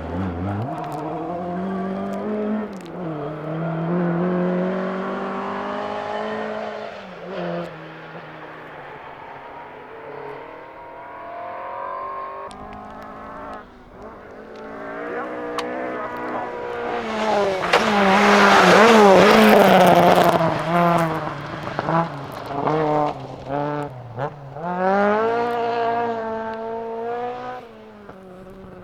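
Ford Escort Mk2 rally car engine revving hard through the gears as it approaches, passes close and drives away, its pitch climbing and dropping sharply with each gear change and lift-off. The loudest moment is the pass, about two thirds of the way in, followed by quick bursts of revs that fade near the end.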